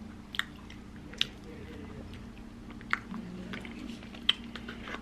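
Close-up mouth sounds of a person chewing food, wet and squishy, with a few sharp clicks and smacks.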